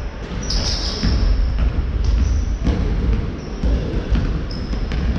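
Basketball game sounds in a large echoing sports hall: a ball bouncing on the wooden court in a series of knocks about half a second apart, with a few brief high squeaks from players' shoes on the floor.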